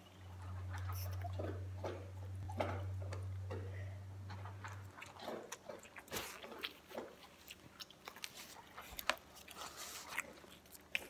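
Close-up eating sounds: a person chewing noodles, with small irregular clicks and smacks. A low steady hum sits under it and stops about five seconds in. Scattered clicks and knocks of handling follow.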